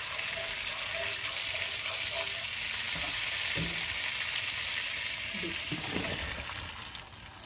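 Butter sizzling and frothing as it melts with crushed cardamom in a non-stick pan, stirred with a silicone spatula. The sizzle is a steady hiss that dies down near the end.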